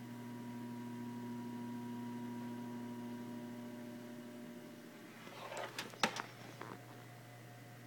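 Desktop computer case vibrating with a steady hum and a faint higher tone, which fades out about four and a half seconds in. A few clicks and one sharp knock follow, the case or its panel being handled.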